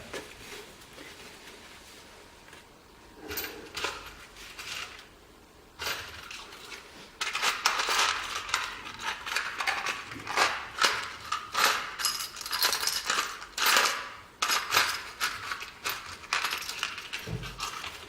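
Small metal parts, such as steel screws, clinking and rattling as they are rummaged through and handled, a few clinks at first and then a long busy run.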